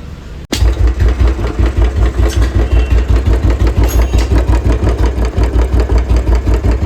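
Royal Enfield Bullet 350's single-cylinder engine running with a steady, even thump. It starts abruptly about half a second in and cuts off suddenly at the end.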